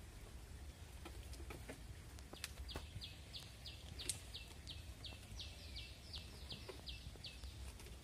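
A bird calling a fast run of short high notes, about three a second, starting about two and a half seconds in and stopping near the end. Scattered light clicks and taps come from plastic seedling cups being set into the holes of PVC hydroponic pipes.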